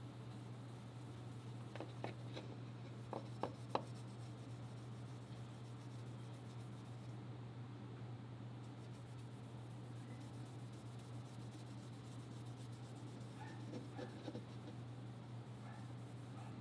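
Cloth rubbing tung-oil finish onto a wooden rifle handguard, with faint rubbing sounds and a few light knocks as the handguard is handled, over a steady low hum.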